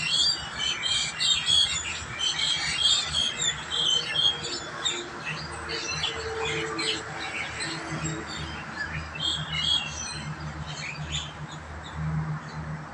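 A flock of mynas squabbling, many harsh, chattering calls overlapping, busiest in the first few seconds and thinning out after.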